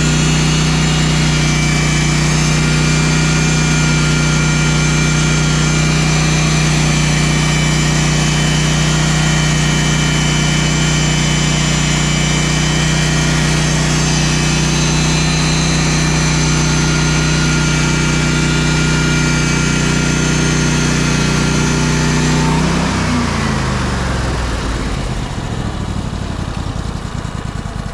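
An engine runs steadily at one fixed speed. It is shut off about 23 seconds in, and its note falls away as it spins down to a stop.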